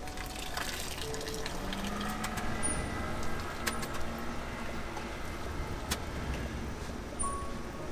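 Wire-mesh ramen noodle strainers being lifted from boiling water and shaken to drain, with a few sharp metal knocks, over a steady low rumble.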